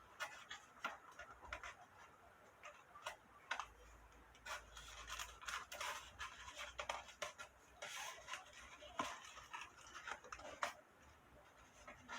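Close handling sounds while a cicada's hind wing is being set for a specimen: irregular small clicks and scratchy rustles, busiest in the middle.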